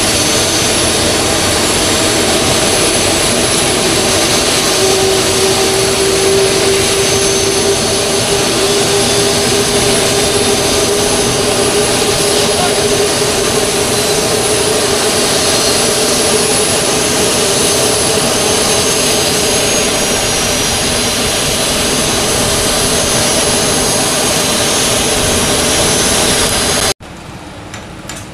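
Jet aircraft engines running steadily: a loud, even roar with a high-pitched whine. About a second before the end it cuts off abruptly to a much quieter engine sound.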